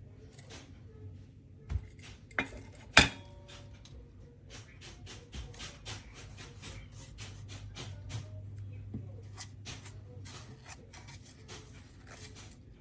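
Hard objects being handled on a surface: three sharp knocks in the first three seconds, the third the loudest, then a long run of quick light clicks and rustles. No grinder motor is running.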